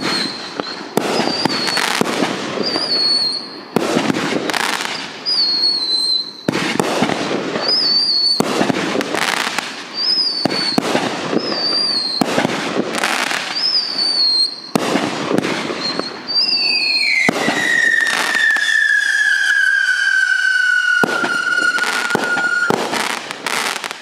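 Consumer fireworks cake firing: a rapid series of shots, each with a short high whistle as the shell rises, then a burst, about one a second. About sixteen seconds in, a spinning UFO girandola rises with one long whistle gliding steadily down in pitch, and several loud bursts come near the end as its breaks go off.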